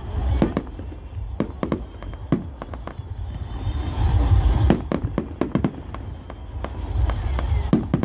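Display fireworks going off in quick succession: more than a dozen sharp bangs and crackles at an uneven pace, over a low rumble.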